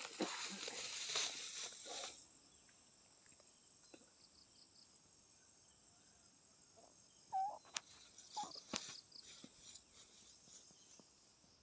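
Boots swishing through low grass and weeds for about two seconds, then a steady high insect drone, typical of crickets, over near quiet. A short chirp and a few faint clicks come about seven to nine seconds in.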